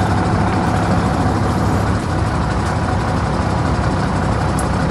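An engine running steadily at idle, a continuous low rumble with no change in speed.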